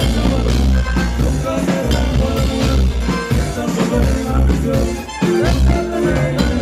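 A band playing live music, with a strong bass line under pitched instruments.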